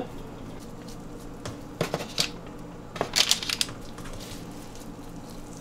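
Short rustles and light taps of raw meatballs being set down on a parchment-lined baking sheet, in a few clusters between about one and a half and three and a half seconds in, over a low steady hum.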